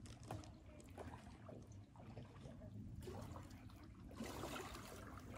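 Faint trickle of shallow river water, with distant children's voices coming through faintly now and then.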